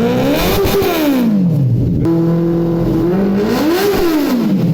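Ducati Monster 1100's L-twin engine revved twice from idle: the pitch rises sharply and falls back soon after the start, idles steadily, then a second blip of the throttle near the end.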